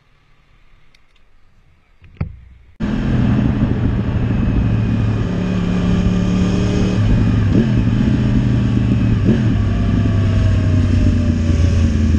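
Sport motorcycle engine running in slow traffic, heard from the rider's position with wind hiss. The engine comes in abruptly about three seconds in, after a faint stretch and a short knock, and rises briefly twice with throttle blips before easing off near the end.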